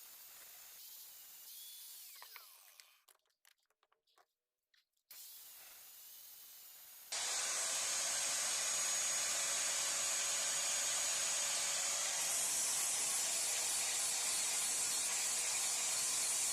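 An electric grinding tool running steadily against the steel of an adjustable wrench, coming in abruptly about seven seconds in after a few seconds of faint noise.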